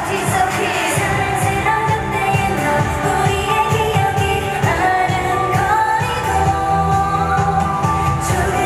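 K-pop girl group singing into handheld microphones over a loud dance-pop backing track with a steady beat, played through concert PA speakers.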